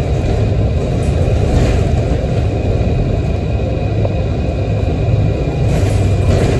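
Diesel city bus under way, heard from inside the passenger cabin: a steady low engine drone and road rumble.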